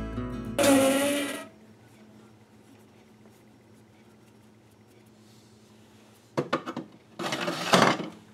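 Acoustic guitar background music that ends about a second in, followed by a faint steady hum. Near the end come a few sharp clicks and a short scraping rub from handling at a stopped metal lathe.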